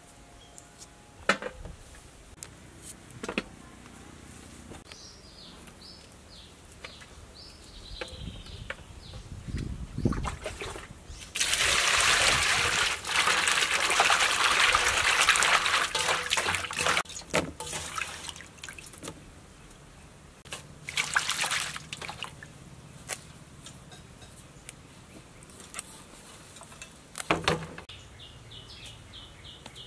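Hands swishing and splashing moringa leaves in water in a stainless-steel basin: several seconds of loud splashing in the middle, a shorter burst a few seconds later, and small clicks and knocks of handling between.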